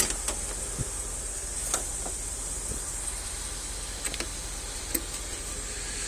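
A car door being opened by hand: a few light clicks of the handle and latch, the sharpest about five seconds in, over a steady low hum.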